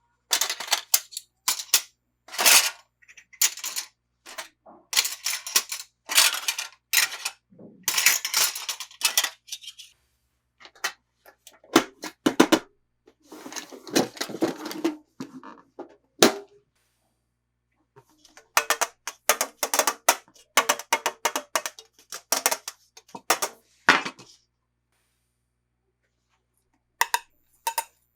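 Hard plastic toy pieces and packaging being handled: rapid clicks, clacks and crackles in bursts, with a few short pauses.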